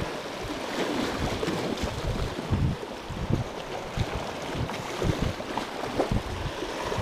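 Small sea waves washing and splashing over shoreline rocks, with gusts of wind buffeting the microphone.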